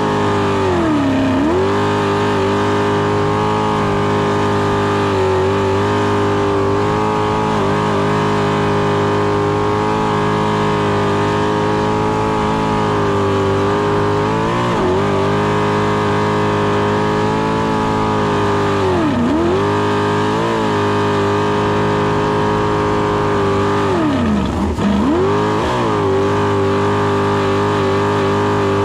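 V8 jet sprint boat engine running hard at high revs. Revs hold nearly steady, with brief sharp dips and quick pick-ups about a second in, around two-thirds of the way through and again a little later.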